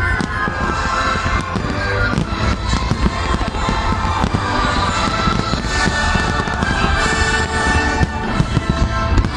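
Dense fireworks barrage: a continuous run of overlapping shell bursts and crackles with no pause, with music playing underneath.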